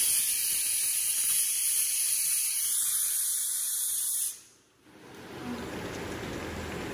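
Pressure cooker venting steam through its valve: a steady, loud hiss that cuts off abruptly about four seconds in. After a brief silence, a quieter sizzle of chicken and onions frying in a wok.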